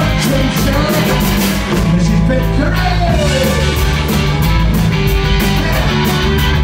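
Live rock band playing loudly: electric guitar and bass over drums, with a steady beat of cymbal hits.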